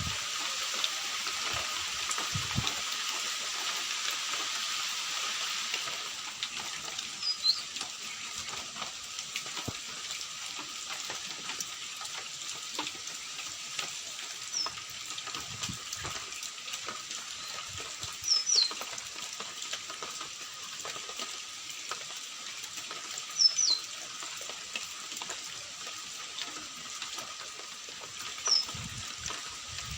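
Steady crackling patter of rain, with a bird giving short high chirps about every five seconds.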